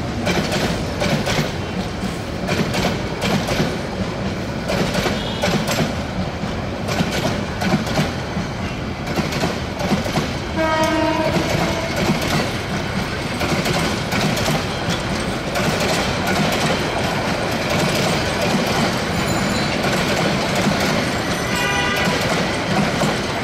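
Bangladesh Railway intercity passenger coaches rolling past close by, their wheels clattering steadily over the rail joints. A train horn sounds for about a second around the middle, and a shorter, higher tone follows near the end.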